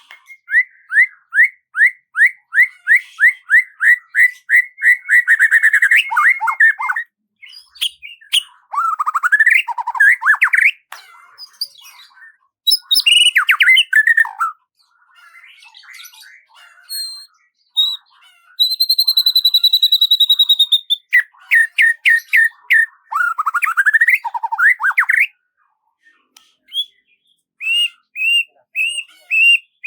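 Birdsong: a fast run of repeated notes, about four a second, for the first several seconds, then varied rising and falling phrases. A long, steady, high whistle comes about two-thirds through, followed by another quick run of notes and short chirps near the end.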